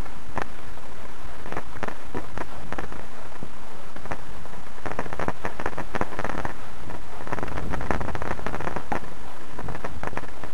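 Steady rushing noise with many irregular crackles: wind and handling noise on a camcorder microphone while it is carried on foot across grass.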